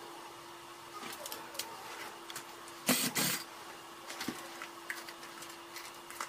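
Hands handling a plastic-bodied electric screwdriver and taking off its carbon-brush cover: scattered small clicks and taps, with one short, loud scraping rustle about three seconds in. A faint steady hum runs underneath.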